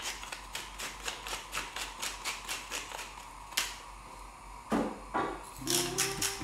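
Hand-twisted salt and pepper grinder seasoning raw meat: a rapid, even run of ratcheting clicks, about five a second, with a short pause a little past halfway. Guitar music comes in near the end.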